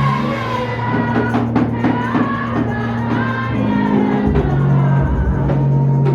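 Live worship music: voices singing over a band with drums and a sustained bass line.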